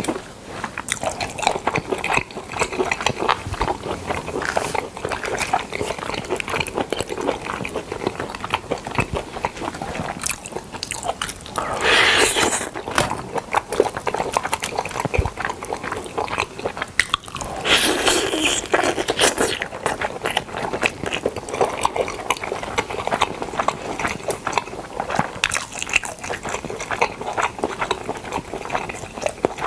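Close-miked eating of smoked chicken: steady biting and chewing with wet, crackly mouth sounds. Two louder, longer noisy stretches come about twelve and about eighteen seconds in.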